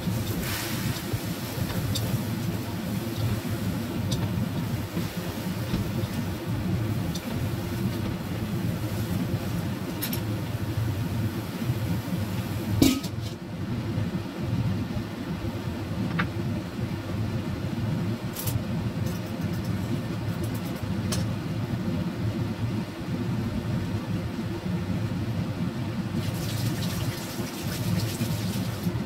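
Napa cabbage cooking in a stainless steel wok over a gas flame, over a steady low rumble, with light taps of chopsticks stirring in the first half. About 13 seconds in, a single sharp metal clank as the domed lid goes onto the wok; after it the sizzle is muffled under the lid.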